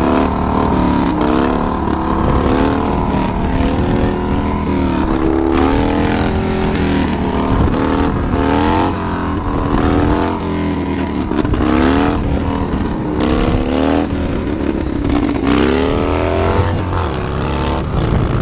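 Motorcycle engine under throttle, its pitch climbing and dropping back over and over, about once every one to two seconds, over a steady low rumble.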